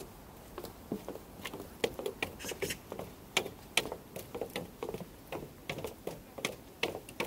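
Footsteps on snow at a steady walking pace, each step a short crunch.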